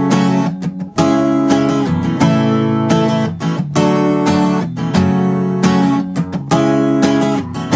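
Acoustic guitar strumming chords in the instrumental opening of a pop-rock song, with a strong strum roughly once a second.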